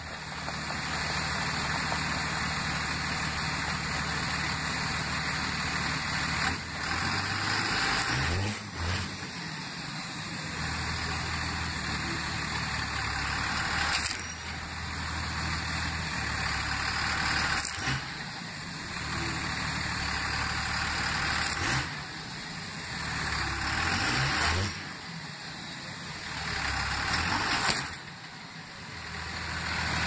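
2001 Dodge Ram 2500's turbocharged 5.9 L Cummins straight-six diesel revving hard several times, pitch climbing and dropping back between pulls, as the truck strains against a dumpster dragged by a strap.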